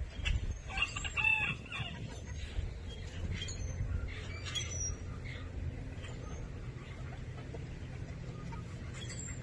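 Chickens calling: one loud call lasting about a second, starting about a second in, then softer, shorter clucking calls over the next few seconds, over a steady low rumble.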